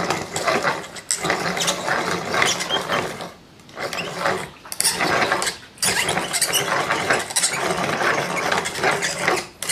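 Wooden stock being spun and fed through a dowel maker's blade cutter head, the blade shaving it round with a dense rattling chatter that stops briefly a few times.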